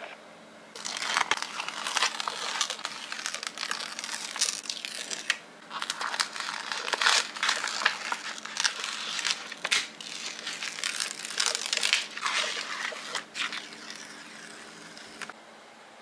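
Paper sticker sheet crinkling and crackling as hands bend it and peel stickers off, in irregular runs with a short break about five seconds in and again near the end.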